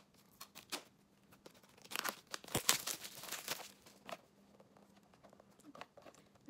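Wrapping being torn and crinkled off a small cardboard earbuds box: scattered light rustles, then a louder spell of crinkling and tearing about two seconds in, settling back to a few faint rustles.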